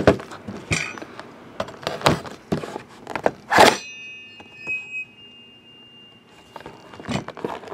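Cardboard card box and its plastic wrap being handled: scattered taps and rustles, with one louder thump about three and a half seconds in. Just after the thump, a faint steady high beeping tone holds for about two and a half seconds.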